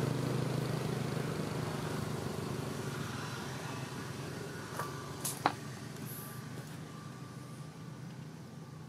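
A motor vehicle's engine running steadily and fading away, with a few sharp clicks about five seconds in.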